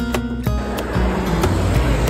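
Background music of light, clearly pitched notes; about half a second in, a steady rushing street noise comes in under it.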